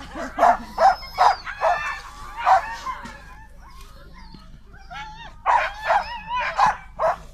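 Alaskan Malamute giving excited short yips and barks in quick runs, with whiny calls that bend up and down between them: an excited, playful greeting of another malamute. A run of about four yips at first, a quieter whining stretch in the middle, then another run near the end.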